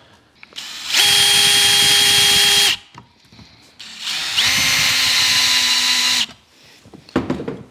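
Cordless drill/driver driving mounting screws, in two runs of about two seconds each with a pause between. Its motor gives a steady whine on each run.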